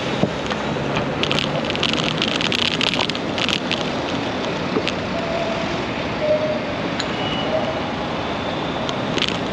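Steady wind rush on the microphone of a moving ride-along camera, with city traffic noise under it and spells of rapid clicking or rattling about a second in and again near the end.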